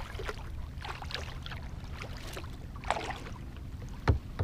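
Double-bladed kayak paddle dipping into lake water, with light splashes and drips for the first three seconds, over a steady low rumble. A single low knock a little after four seconds.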